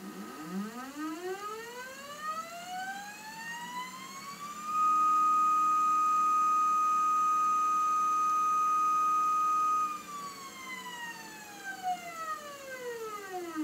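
Stepper motors of a motion control slider rig whining as they drive the carriage. The pitch falls at the start, rises smoothly as the motor speeds up, holds one steady high tone for about five seconds, which is the loudest part, then falls again near the end as it slows.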